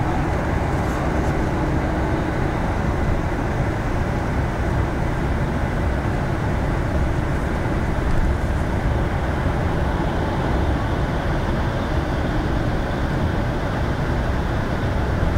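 Steady engine and road rumble heard inside a moving bus's cabin, travelling at speed.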